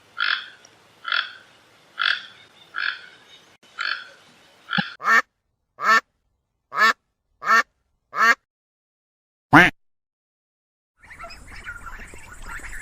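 A series of short animal calls repeated at a steady pace, then a set of louder calls, each falling in pitch.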